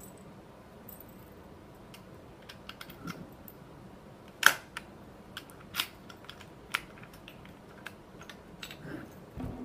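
Scattered sharp metal clicks and clacks of a key going into and turning in the emergency key cylinder of a Nagasawa KL-4000 mechanical code lock, with the lock mechanism clicking. The loudest clack comes about four and a half seconds in.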